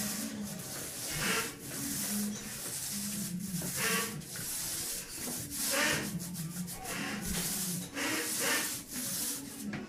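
Repeated rubbing, scraping strokes against a freshly top-coated epoxy floor, about one a second, from work on the wet coating.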